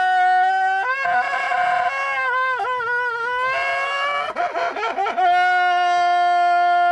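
A man screaming in fright: a long, high-pitched scream held on one pitch, a wavering, warbling stretch in the middle, then held steady again.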